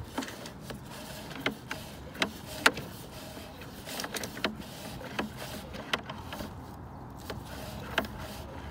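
Sewer inspection camera's push cable being fed by hand down a roof vent: irregular sharp clicks and knocks, roughly one or two a second, over a low steady hum.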